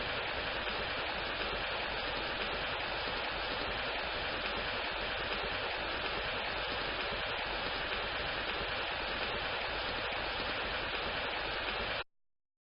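Rain sound effect: steady, even rainfall hiss that cuts off abruptly near the end.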